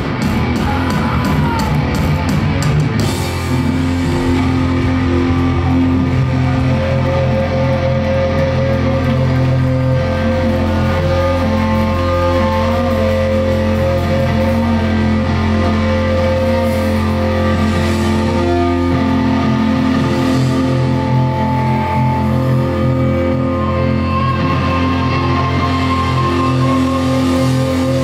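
Hardcore punk band playing loud through a club PA: drums and cymbals crash for the first few seconds, then drop out while the electric guitars and bass hold long ringing notes and chords over a steady low drone. The drums come back in right at the end.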